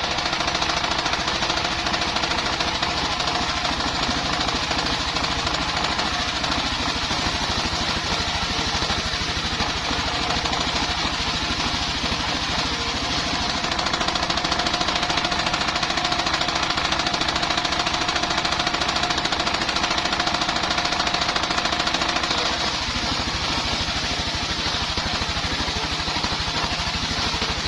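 Engine-driven circular sawmill running steadily while sawing bayur wood into beams, a rapid even engine beat under steady tones. A higher steady whine comes in about halfway and stops about five seconds before the end, the sound a little louder while it lasts.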